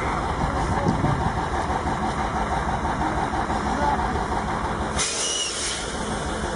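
Heavy truck diesel engine running steadily as a six-wheel tow truck strains on a cable, with men's voices faintly over it. A high hiss joins about five seconds in.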